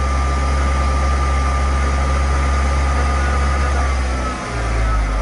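1997 Saturn SL1's 1.9-litre four-cylinder engine idling steadily at full operating temperature. About four seconds in, its note dips briefly and shifts.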